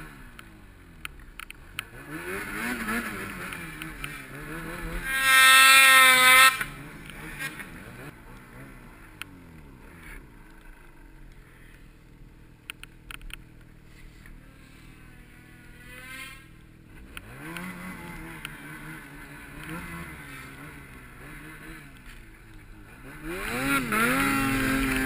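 Snowmobile engines revving up and down, mostly at a distance. About five seconds in, one sled runs loud and close for a second or so at a steady high pitch, and near the end another sled runs loud and close again.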